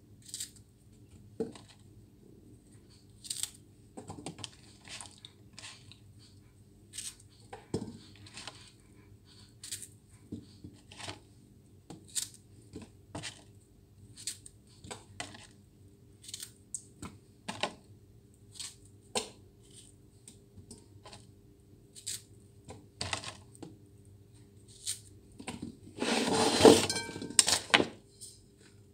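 Scattered small clicks and ticks of hands handling small things on a kitchen counter, over a faint steady low hum. Near the end comes a louder clatter of a dish or bowl being handled.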